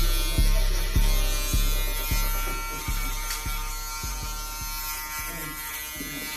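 An electric hair clipper buzzes steadily under a music beat. The beat's deep bass hits come about every half second, then fade and drop out a little past halfway.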